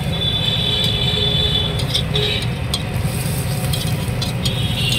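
Onion, tomato and capsicum frying in a large iron kadhai, with a metal spatula scraping and clicking against the pan now and then. A steady low rumble runs underneath.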